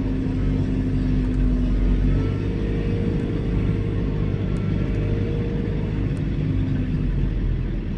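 John Deere 4066R compact tractor's four-cylinder diesel running under way, heard from inside the cab, with a steady low rumble and a whine that rises in pitch about two seconds in and drops back about six seconds in. Auto throttle is on, so engine speed is following how far the hydrostatic pedal is pressed.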